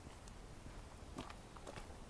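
Faint footsteps with a few scattered soft clicks over a low steady background rumble.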